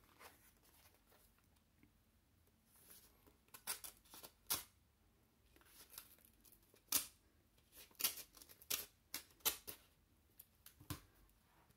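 Faint snips of scissors cutting through a paper envelope: a run of short, sharp cuts starting about three seconds in.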